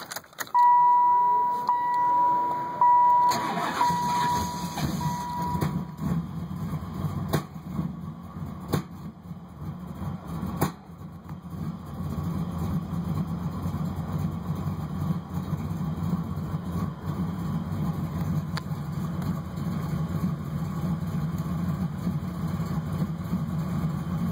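Camaro 383 stroker V8 cranking and catching about three seconds in, then idling steadily, with a few sharp pops in its first several seconds of running. A steady high tone sounds for the first few seconds. The owner suspects the spark plug wires are mixed up.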